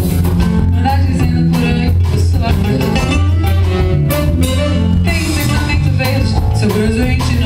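Live Brazilian music with a band playing and a singing voice over a steady bass.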